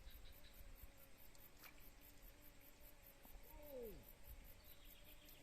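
Near silence with faint insects chirping in a steady, evenly repeating high pulse, and a brief falling call a little past the middle.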